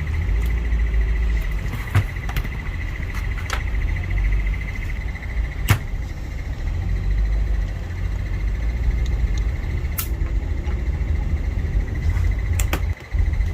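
Scattered sharp metallic clicks and knocks from tools and parts while a starter's solenoid switch is being taken apart, over a steady low hum and a thin high whine.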